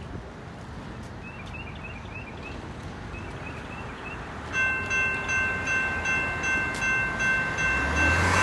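Railroad crossing electronic bells (General Signals Type 2 E-Bells) start ringing about four and a half seconds in, with evenly repeated dings about two a second, signalling that the crossing has activated for an approaching train. Birds chirp before the bells start.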